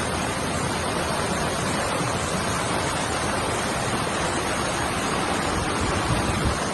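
A river in flood rushing past in a steady, loud roar of churning water.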